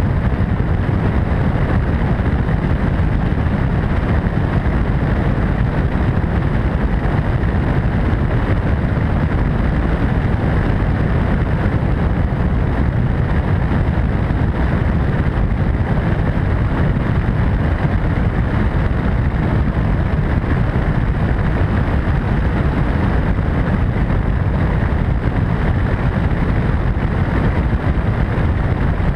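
MD600N helicopter in flight: a steady, deep rumble of rotor and turbine engine, mixed with wind rushing over the microphone.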